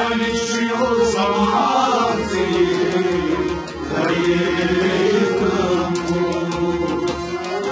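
Kashmiri Sufi devotional music: a voice singing a kalam over steady held instrumental tones.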